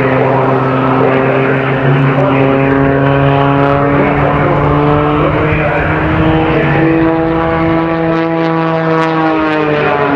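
Propeller-driven aerobatic airplane flying a display, its engine and propeller making a steady drone. The pitch climbs gradually over several seconds and then drops away near the end.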